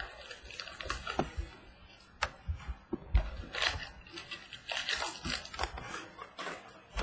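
Foil baseball-card pack wrapper crinkling and tearing open, with the cards inside handled and shuffled: irregular crackles and clicks, busiest and loudest from about three to five seconds in.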